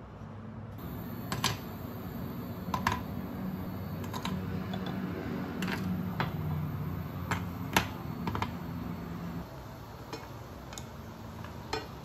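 Raw prawns being laid one by one into an oiled ceramic frying pan on an induction hob: sharp, scattered clicks and light pops, roughly one every second or so, over a low hum that fades about three-quarters of the way in.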